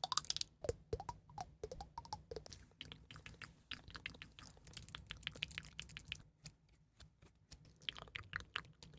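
Close-miked ASMR trigger sounds: a quick, irregular run of soft clicks and taps, a few with a short falling pitch in the first couple of seconds.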